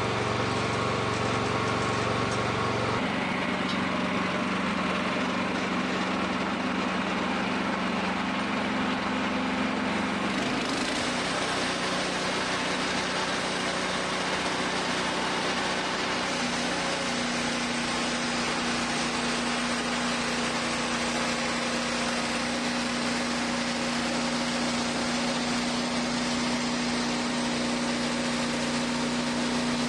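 Wood-Mizer portable bandsaw sawmill running as its band blade saws through a cherry log: a steady engine note that shifts pitch a few times, with a brighter hiss that strengthens about ten seconds in.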